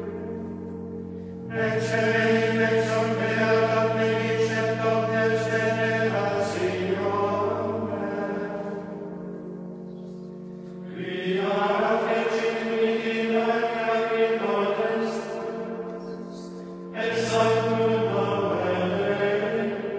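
Slow choral music: voices singing sustained chant-like phrases that swell and fade, with new phrases coming in about a second and a half in, about eleven seconds in and near the end.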